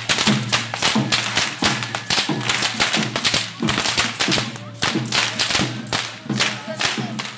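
Tlacololero dancers cracking their long whips (chirriones) over and over: many sharp cracks, several a second and unevenly spaced, with music underneath.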